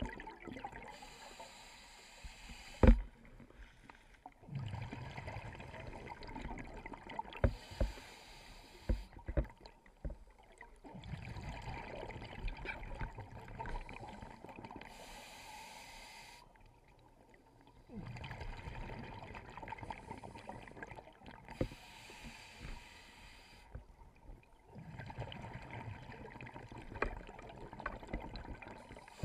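Scuba regulator breathing heard underwater through a GoPro housing: a bubbling exhalation burst every few seconds, with quieter gaps for the inhalations between. A few sharp clicks or knocks sit among the bubbles, the loudest about three seconds in.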